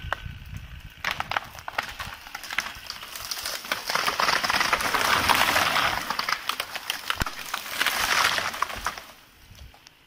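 A felled tree cracking and crashing down through neighbouring branches, a dense run of snaps and crackles. It builds from about three seconds in, is loudest in the middle and again shortly before it dies away near the end.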